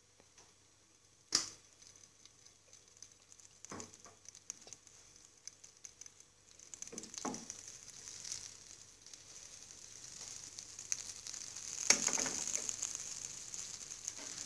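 Butter melting in hot oil in a nonstick frying pan, sizzling faintly at first and then more loudly through the second half. A sharp click comes about a second in, and a few soft knocks follow.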